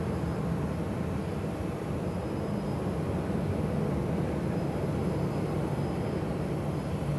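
Steady airport ambience: a continuous low rumble of distant jet aircraft engines, with a faint high engine whine that comes and goes.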